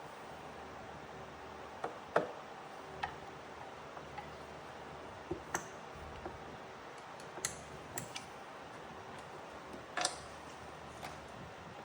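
Irregular light clicks and taps from small parts and tools being handled on a workbench, over a steady faint hiss.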